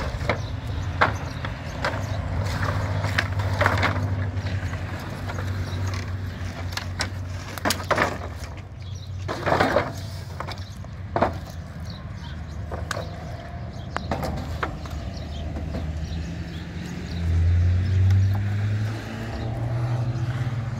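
An engine running steadily, its pitch stepping up and getting louder near the end, with scattered knocks and clatter.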